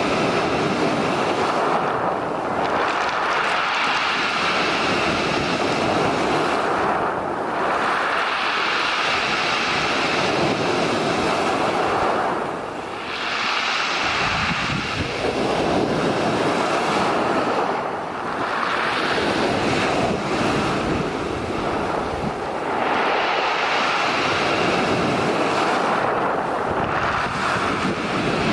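Sea surf: waves breaking and washing ashore in repeated swells about every five seconds.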